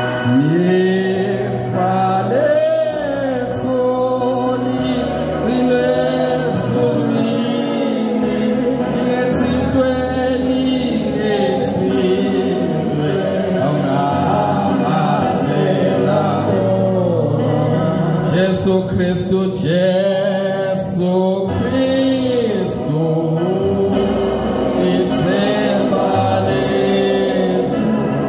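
A church congregation singing a gospel hymn together, many voices in harmony over sustained low notes.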